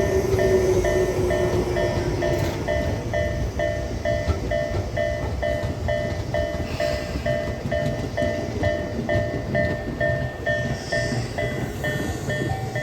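Japanese level-crossing warning bell ringing about twice a second while a Tobu 10000 series electric train passes over the crossing, its wheels and running gear making a steady rumble. A low falling whine fades out over the first two seconds, and near the end the bell's pitch steps up slightly.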